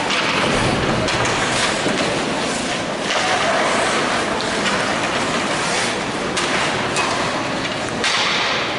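Ice hockey play: skate blades scraping on the ice, with scattered knocks of sticks and puck.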